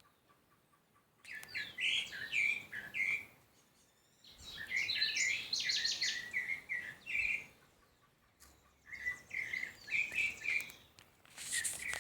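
Songbird song in three phrases of quick, varied chirping notes, each lasting two to three seconds, separated by short pauses.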